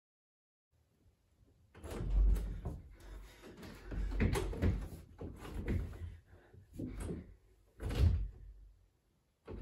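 Interior door being opened and pushed shut, with a run of bumps and thuds against it. The loudest thuds come about two seconds in and again about eight seconds in.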